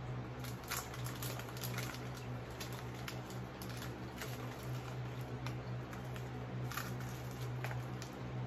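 Irregular small crackles and clicks of a snack being unwrapped and eaten, over a steady low hum.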